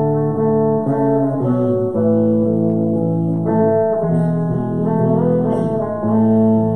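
Live band's electric and acoustic guitars playing an instrumental passage without singing, the chords changing every half second to a second.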